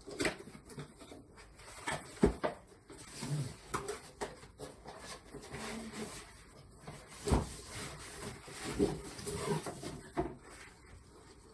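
Cardboard box being opened and handled by hand: flaps pulled and scraped, packaging rustling, with irregular knocks and thumps as a padded, bagged pot is lifted out.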